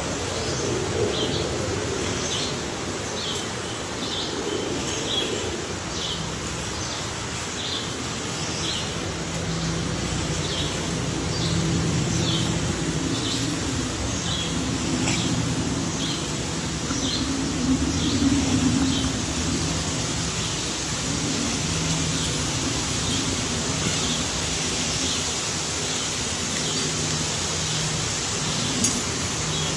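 A bird chirping, short high notes repeated irregularly about once or twice a second, over a steady low engine-like hum.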